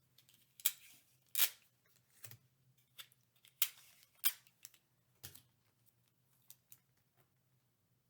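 Tape and paper being handled at close range: a scattered run of short, sharp clicks and crinkles, the loudest about two thirds of a second and a second and a half in, then again near the middle.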